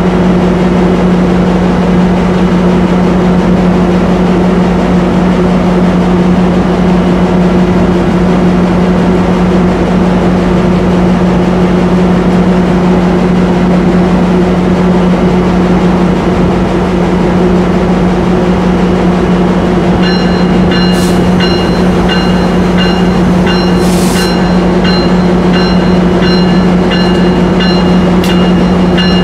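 Amtrak F59PHI diesel locomotive idling at the platform with a steady low hum. About twenty seconds in, its bell starts ringing in quick repeated strokes, with short hisses of air a second, four seconds and eight seconds later: the train readying to depart.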